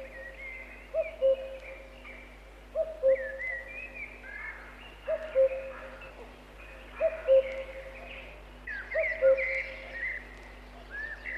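A cuckoo calling its two-note falling 'cuck-oo' over and over at a steady pace, with small birds chirping higher up.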